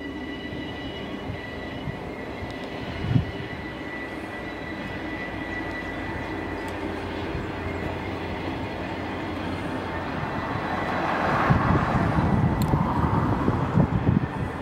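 Diesel-electric Class 67 locomotive hauling a Class 385 electric multiple unit past at a distance: a steady rumble with a thin, steady high whine. A louder rushing noise builds over the last few seconds.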